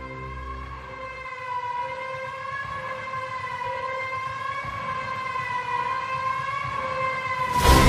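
A siren wailing on one sustained note that slowly wavers up and down. Low music under it drops out about a second in, and a loud burst of music comes in near the end.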